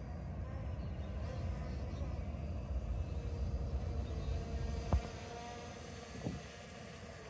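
F198 mini quadcopter drone flying overhead, its propellers making a steady hum over a low rumble. A sharp click about five seconds in, the loudest moment, and a softer one just over a second later.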